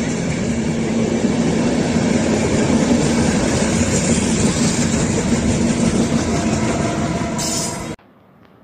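InterCity Notte passenger coaches rolling past at close range: steady, loud wheel-on-rail noise with a low hum. It cuts off suddenly near the end.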